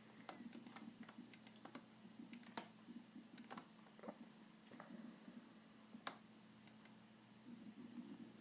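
Faint, irregular clicks of typing on a computer keyboard, with a steady low hum underneath.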